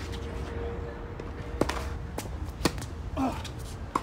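Tennis ball struck by rackets and bouncing on a hard court during a doubles rally: a few sharp pops spaced roughly half a second to a second apart. A player's brief call about three seconds in.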